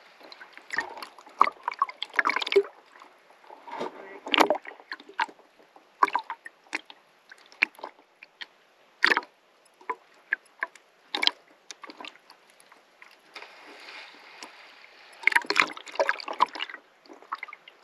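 Sea water sloshing and splashing against a camera held at the surface, with irregular sharp slaps and gurgling as it dips in and out of the water among rising bubbles.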